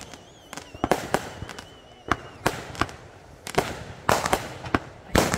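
Firecrackers and fireworks going off in scattered, irregular bangs of differing loudness, near and far, the loudest near the end. A faint high whistle fades out in the first couple of seconds.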